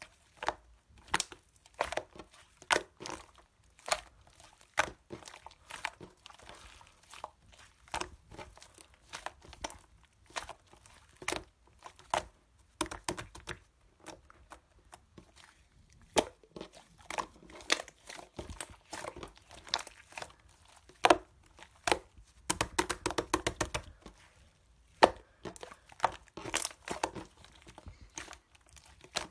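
Clay slime being squished, poked and stretched by hand, making a steady run of sharp clicks and pops. About two-thirds of the way through comes a quick rapid-fire run of pops, then a few louder ones.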